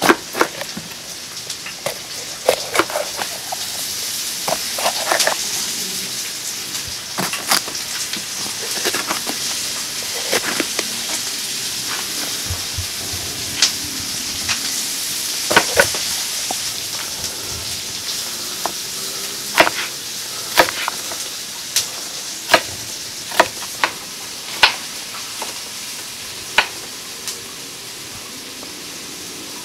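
Kitchen knife chopping bell peppers on a wooden cutting board: sharp, irregular chops every second or so, over a steady sizzle of food frying in a pan.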